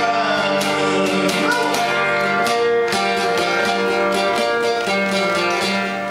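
Live acoustic music: a ukulele strummed in a steady rhythm over long held notes.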